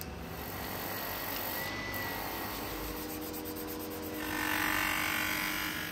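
A yellow sanding sponge rubbing along a miniature rapier blade forged from a sewing needle, a dry scratchy hiss that grows louder for about a second and a half near the end.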